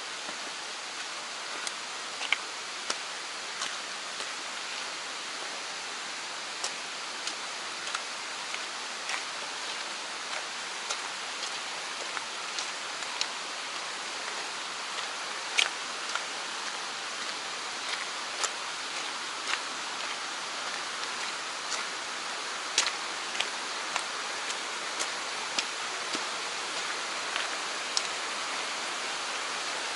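Steady rushing of a small mountain stream, with irregular sharp ticks and taps scattered through it, several clear ones each few seconds.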